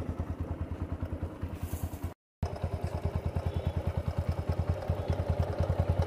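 TVS Apache 160's single-cylinder engine idling steadily in first gear, turning the raised rear wheel and chain, with an even beat of about ten pulses a second. The sound cuts out briefly a little after two seconds in.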